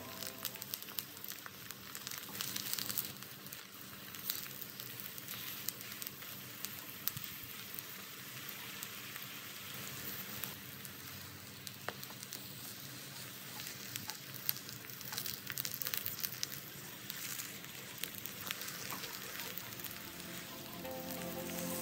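Eggplant slices frying in hot oil in a pan, a steady sizzle with scattered sharp crackles.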